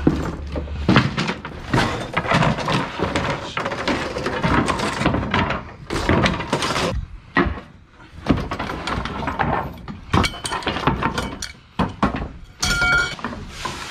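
Junk being tossed and stacked in the cargo box of a truck: a steady run of irregular knocks, thuds and clatters of wood, metal and cardboard.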